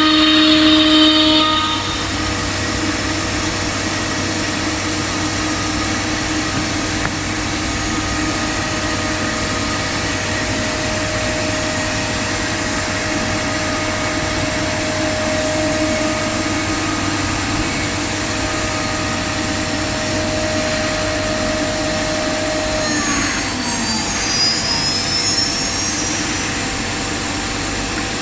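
An STD-1325 ATC CNC router running, a steady machine whine with several constant tones over a low hum. About two seconds in the louder tones drop away, and near the end high whining tones glide up and down in pitch.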